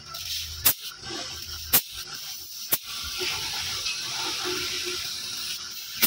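Steady hiss of gas escaping from the refrigerator's opened refrigerant tubing, a little louder from about halfway. Three sharp ticks about a second apart in the first half.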